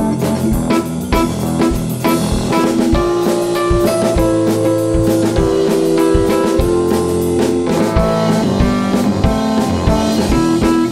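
Instrumental blues intro played live: Fender Rhodes electric piano chords over a drum kit keeping a steady beat.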